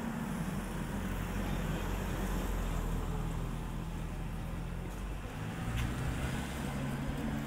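A car engine idling with a steady low hum, its pitch shifting slightly about five and a half seconds in.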